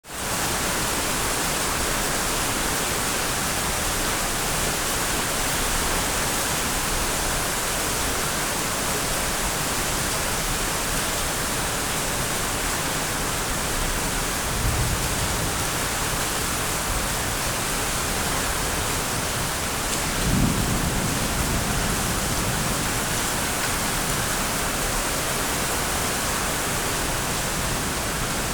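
Heavy rain falling steadily, with two brief low rumbles, one about halfway through and a stronger one about two-thirds of the way in.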